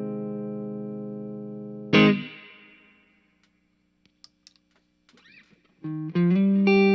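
Fender Telecaster on its neck pickup through a Pettyjohn Edge overdrive/boost set for low gain, into a clean tube amp with spring reverb. A held chord rings and fades, a new chord is struck about two seconds in and dies away, a few seconds of near silence with faint string noises follow, and the playing starts again near the end.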